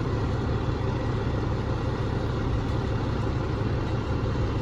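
Fire truck engine idling with a steady low rumble.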